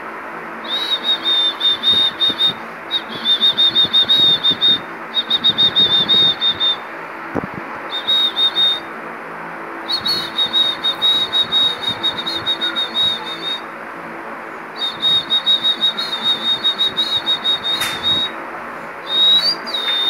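Lutino cockatiel chattering in fast, stuttering trills of high chirps, in short bouts of one to three seconds with brief pauses between, over a steady background hum.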